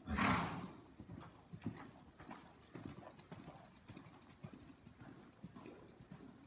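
Hoofbeats of a ridden horse on soft dirt arena footing: dull thuds, about two to three a second. It opens with a brief loud rush of noise lasting about half a second.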